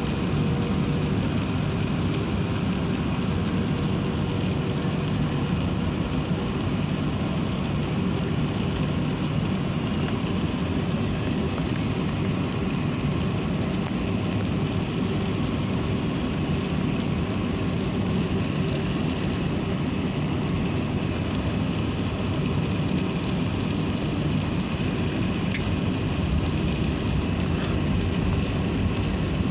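Steady low rumble of cabin noise inside an Airbus A380-800 on the ground, a constant hum of engines and air systems heard from a window seat.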